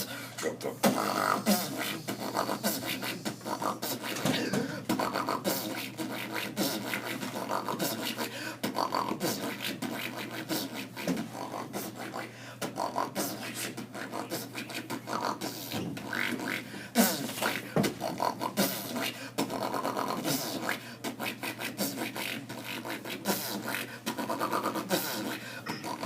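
A boy beatboxing an imitation of dubstep: a fast, unbroken run of mouth-made drum hits mixed with vocal electronic-style noises.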